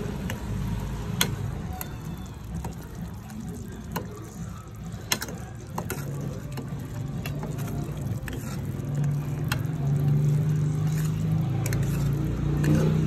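A metal spoon stirs and scrapes thick shrimp paste cooking with brown sugar in a stainless steel saucepan, with scattered sharp clicks where the spoon knocks the pot. A low steady hum runs underneath and grows louder in the second half.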